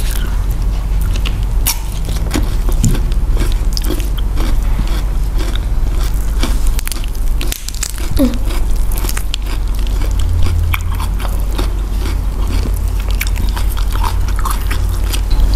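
Close-up mukbang eating sounds: crunchy bites of a whole raw cucumber and chewing, heard as many short sharp clicks, over a steady low hum.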